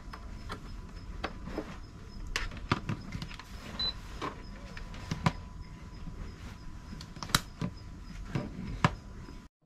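Plastic clicks and knocks as a USB cable is plugged into the port of an EENOUR portable fridge-freezer, its panel is pressed and a battery charger is set down on its plastic lid, over a faint steady hum. The sound cuts off suddenly near the end.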